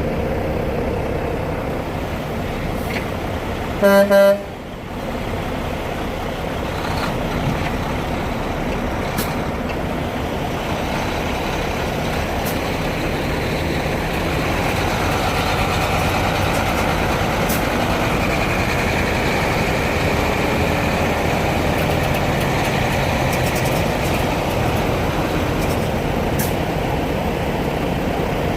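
Heavy diesel truck engines running steadily, growing louder about halfway through. About four seconds in, a short, loud truck horn blast cuts across.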